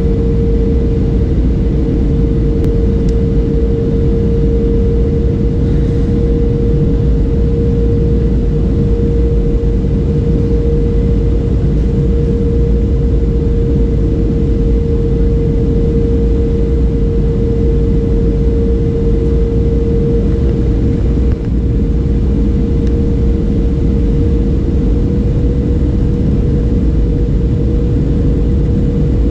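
Cabin noise inside a Boeing 737-800 on final approach with flaps extended: the CFM56 engines and rushing airflow make a steady, loud rumble with a constant mid-pitched drone running through it.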